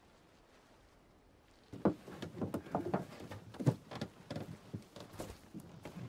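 Faint background hush, then from about two seconds in a busy run of irregular knocks, taps and scuffs.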